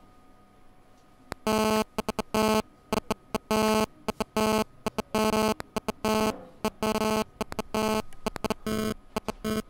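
Morse code signal on a buzzer: a harsh buzzing tone keyed on and off in short and long pulses, with small clicks between. It starts about a second and a half in and runs on, the sound of a radio message coming in.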